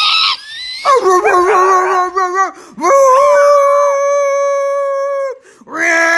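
A dog howling: a short harsh burst at the start, wavering yowls about a second in, then one long steady howl, with another howl starting near the end.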